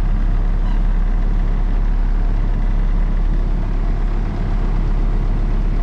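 Concrete mixer truck's diesel engine running steadily with a low drone, keeping the drum turning while the load discharges.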